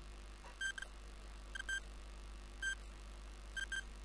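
Countdown timer sound effect: faint short electronic beeps about once a second, alternating between a single beep and a quick double beep, ticking off the seconds.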